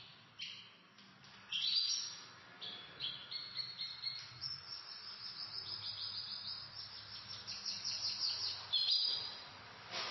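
Pet canaries singing: scattered short chirps, then a long run of rapid repeated trilling notes through the middle, and a few sharper calls near the end.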